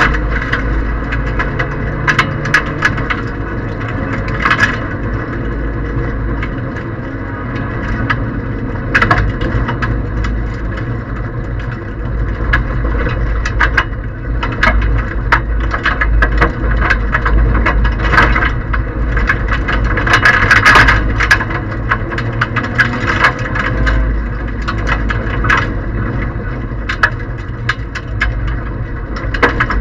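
Inside a Toyota Aygo 1.0 rally car at speed on gravel: the three-cylinder engine runs hard as a steady low drone, while loose stones and gravel crackle, click and rattle against the underside and wheel arches.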